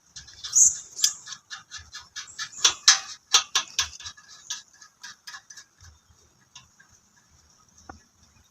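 Quick series of sharp clicks and knocks from parts of a well-drilling rig being handled and fitted together, about three or four a second at first, then sparser, over a faint steady high hiss.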